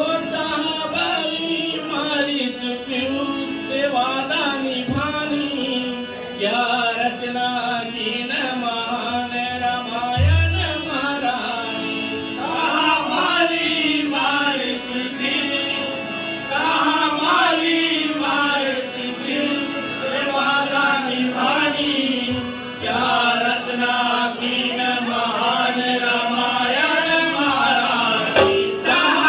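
Fiji-style phaag (chautaal) being performed: men's voices singing over a steady harmonium drone, with dholak drumming and a continuous high metallic shimmer. One deep thump stands out about ten seconds in.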